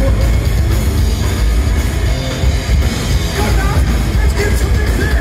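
Crossover thrash band playing live at full volume: distorted electric guitars, bass and drum kit, with a heavy booming low end, heard from within the crowd.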